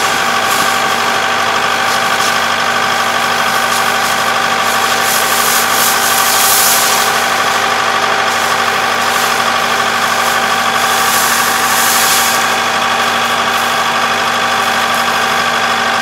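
Kubota ER470 combine harvester running at a steady speed, its diesel engine and threshing machinery making a constant hum with a steady whine. Brief hissing surges come about six and twelve seconds in.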